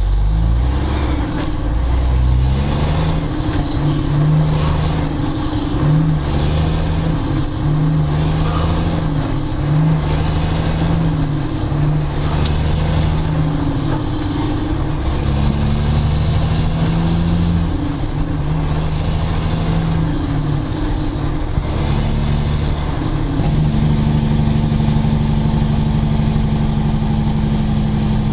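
Loaded Kenworth logging truck's diesel engine pulling hard and working up through the gears. The engine note breaks and steps at each shift, about every second and a half to two seconds, with a high turbo whistle rising and falling with each gear. About three-quarters of the way through it settles into a steady, unbroken pull.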